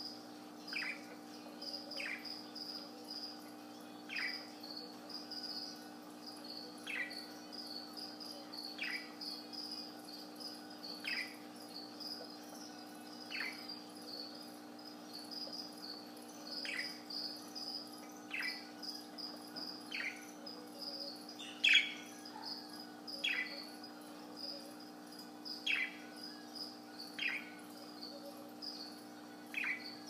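Pet budgerigar giving short, soft downward chirps every second or two, over a steady high pulsing trill and a low steady hum.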